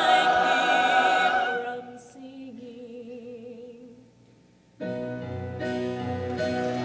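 Show choir singing a held chord that fades out about two seconds in, leaving a soft wavering line. After a brief near-silent pause, the full ensemble with band comes in suddenly and loudly near the end.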